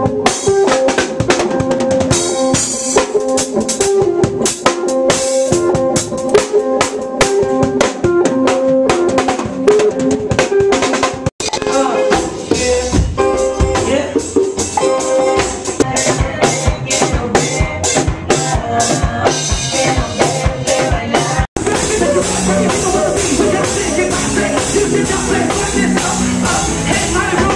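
Live band playing at a sound check: a drum kit with rimshots, snare and bass drum under pitched instruments including guitar. The music cuts out for an instant twice.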